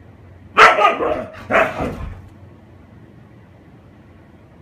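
Siberian husky giving two loud play barks about a second apart.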